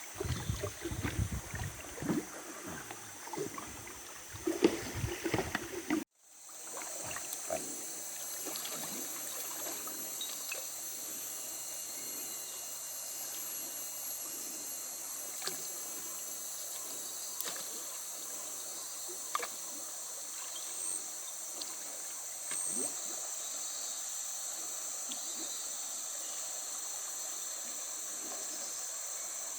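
Water splashing and sloshing around a small rowed river boat for about six seconds. Then it cuts off abruptly to a steady, high-pitched insect chorus of the rainforest, with a few faint clicks.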